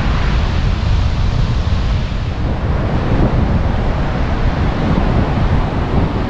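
Wind buffeting the microphone in a loud, uneven low rumble, over the steady hiss of surf breaking on the beach.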